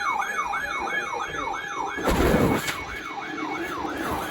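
A siren in a fast yelp, its pitch rising and snapping back about four times a second. A short, loud rush of noise comes about two seconds in.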